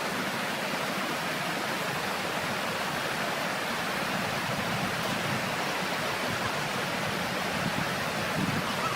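Steady, even rushing noise like flowing water, with no distinct knocks or cracks.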